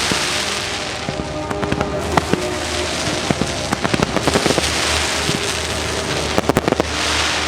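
Fireworks show: sharp bangs and rapid crackling pops over a fizzing, hissing crackle, with a thick cluster of pops about six and a half seconds in, set against the show's music soundtrack.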